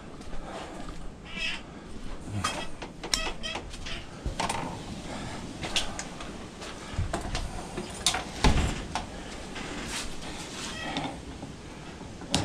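Footsteps and tool handling in a workshop: scattered clicks and metal clunks as a breaker bar and socket are fetched and handled, with one heavier clunk about two-thirds of the way through.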